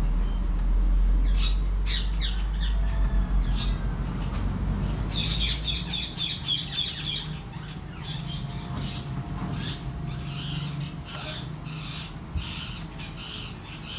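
Indian ringneck parakeet chicks squawking and chirping in short repeated calls, with a quick run of calls about five seconds in. A low rumble underneath fades out about six seconds in.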